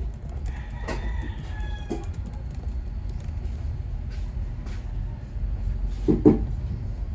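A rooster crowing once, a falling call of about a second and a half, over a steady low hum, with a short louder call near the end.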